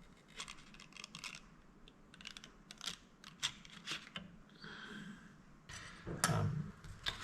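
Small objects being handled on a work surface: a run of light, irregular clicks and taps, with a brief squeaky rub a little before the five-second mark.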